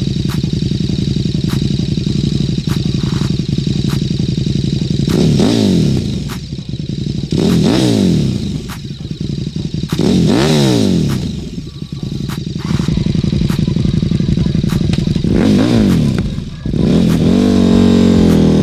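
KTM RC8R V-twin sport bike through a Jester aftermarket exhaust, idling steadily and then blipped four times, each rev rising and falling back to idle, with a longer held rev near the end.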